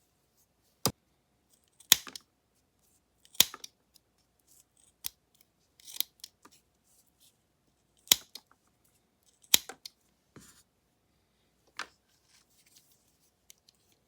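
Small scissors of a JUXWONE multitool being snipped open and shut in the air: about nine sharp metal clicks, unevenly spaced one to two seconds apart.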